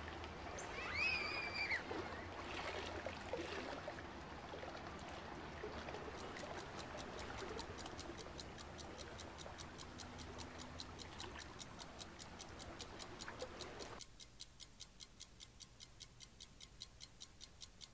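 A couple of short high-pitched squeals over a steady hiss, then a rapid, even ticking, several ticks a second, that starts about six seconds in and goes on alone once the hiss cuts out near the end.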